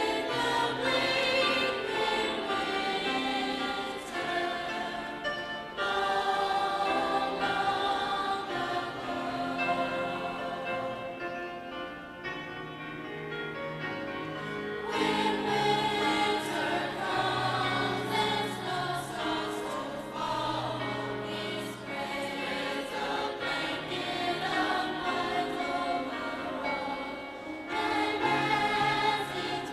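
A concert choir singing in harmony, with sustained chords that soften about halfway through and swell louder again.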